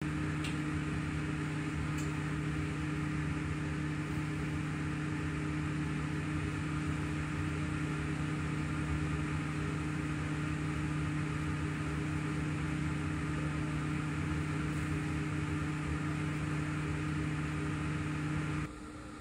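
Commercial kitchen ventilation running: a steady mechanical hum with a low drone under an even rush of air. It cuts off suddenly near the end.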